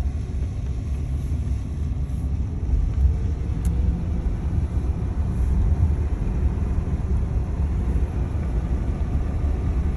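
Steady low rumble of tyre and road noise inside the cabin of a Rivian electric truck driving on a dirt track, with a faint whine rising in pitch a few seconds in.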